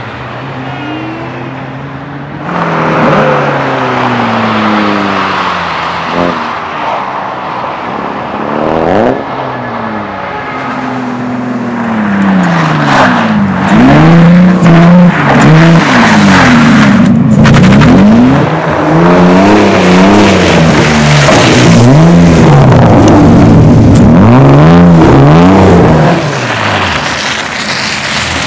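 Race car engines revving hard, pitch repeatedly climbing and dropping with gear changes and lifts. More than one car is heard at once, getting louder about halfway through as they pass close.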